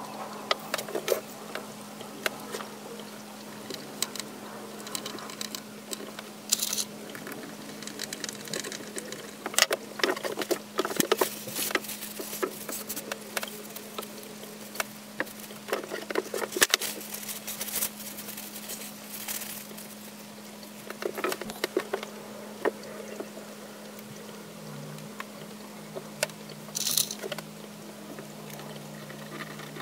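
Small wooden toy-plane parts being handled and rubbed on a workbench: scattered taps, clicks and brief scraping, over a steady low hum.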